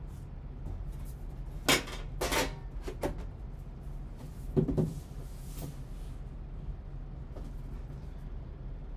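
The lid of a metal trading-card tin being fitted and the box handled: a few sharp knocks and scrapes about two seconds in and a softer knock near the middle, over a steady low hum.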